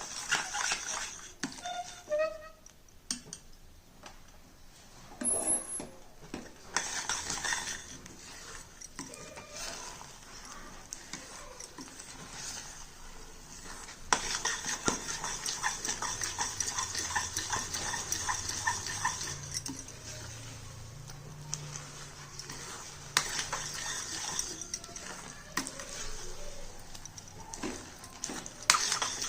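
Stirring and scraping a thick, nearly cooked banana-and-jaggery barfi mixture in a kadhai, with the utensil knocking against the pan now and then. From about halfway the strokes come faster and steadier.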